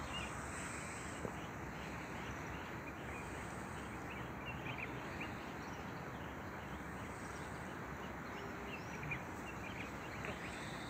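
Quiet outdoor ambience: a steady hiss with many short, high chirps scattered through it.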